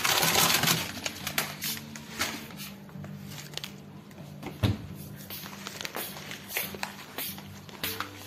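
Background music with a low, stepping bass line, under handling noises: rustling and clicks, loudest in the first second, and one sharp thump about halfway through.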